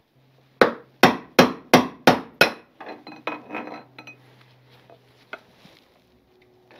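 A hammer strikes a long brass drift six times, about three blows a second, driving the old steering-head bearing outer race out of a motorcycle frame's headstock. Lighter metallic clinks and taps with a faint ring follow.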